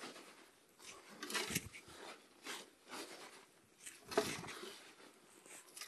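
Soil being scraped and sprinkled by hand over a set jaw-type dog trap to bury it: several soft, irregular scrapes and rustles, the loudest about four seconds in.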